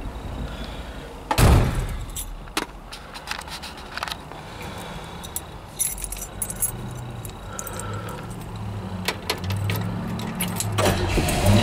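A heavy thump about a second and a half in, then keys jangling and clicking at the ignition of a 1959 Oldsmobile 98. Near the end its 394 Rocket V8 starts and keeps running.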